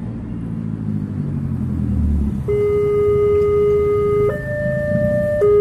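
A car engine running close by, then about two and a half seconds in the level crossing's electronic warning alarm starts, sounding for an approaching train: two steady tones in turn, a lower one held about two seconds, then a higher one about a second, then the lower again.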